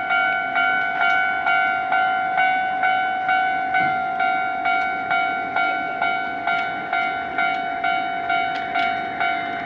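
Japanese railway level-crossing warning bell ringing: a steady run of bright electronic dings, about two a second, each fading quickly.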